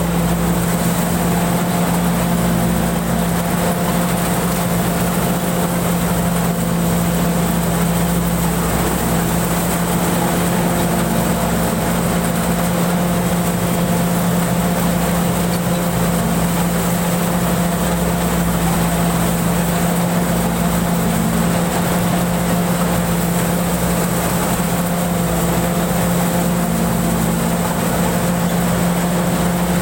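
Rice combine harvester built by Pan Charoen Karnchang, heard from the driver's seat, its engine and threshing machinery running at a steady working speed while harvesting rice. It is one even, unbroken drone.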